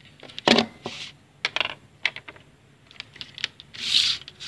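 Hard plastic clicks and knocks from a washing-machine door lock switch and its wires being handled and picked up off a table, with a short rustle near the end.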